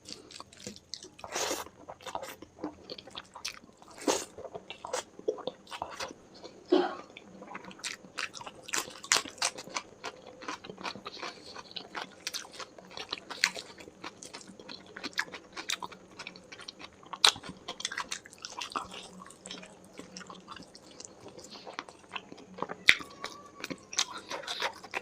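A person eating close to the microphone: wet chewing and biting, with many irregular sharp mouth clicks and occasional louder crunches.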